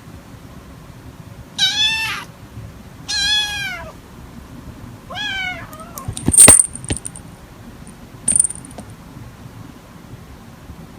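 Kitten meowing three times, high-pitched calls that slide down in pitch, about a second and a half apart. A sharp, loud knock follows a second later, with a smaller click about two seconds after it.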